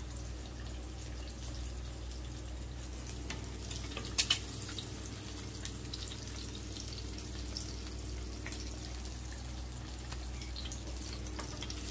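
Eggs frying in oil in a nonstick pan: a steady, faint sizzle with scattered small crackles. Two sharp clicks close together about four seconds in.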